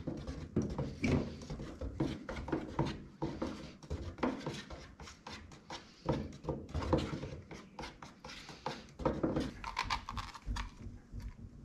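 Wooden paint stir stick knocking and scraping inside a plastic cup while two-part flotation foam is mixed fast. A busy, irregular run of knocks that eases off near the end.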